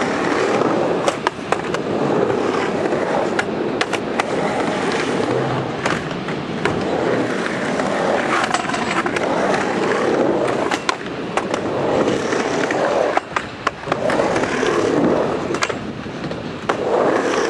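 Skateboard wheels rolling back and forth across a half-pipe ramp, a rumble that swells and fades with each pass, broken by sharp clacks of the board against the ramp.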